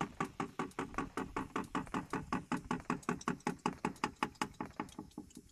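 Old gear oil pouring out of a BMW Z4 E85's rear differential drain hole, glugging in a fast, even rhythm of about eight pulses a second that fades out near the end.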